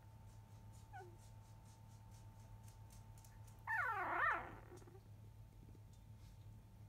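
Newborn five-day-old Labrador retriever puppy whimpering: a faint short squeak about a second in, then a louder wavering whine that glides up and down for under a second just past the middle.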